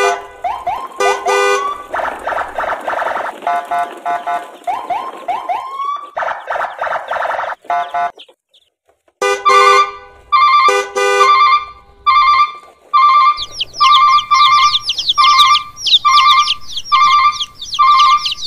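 Electronic siren-like sound-effect tune: warbling beeps with upward pitch slides, a short break about eight seconds in, then a loop of repeated beeps about twice a second with a warbling alarm-like tone over them.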